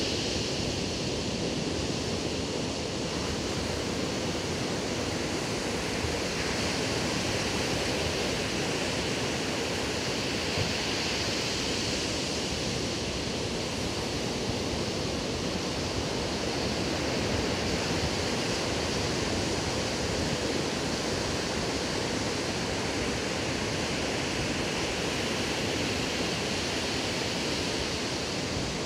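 Ocean surf breaking and washing onto a sandy beach, a steady rush of noise that rises and falls slowly.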